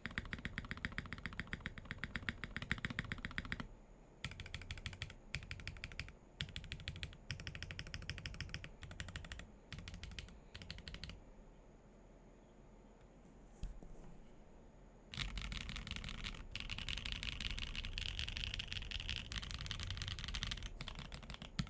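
Weikav Lucky65 V2 65% mechanical keyboard with lubed MMD Holy Panda tactile switches, carbon fibre plate and no foam, being typed on: fast runs of keystrokes, then a few seconds' pause broken by a single click, then a dense stretch of rapid typing that stops near the end.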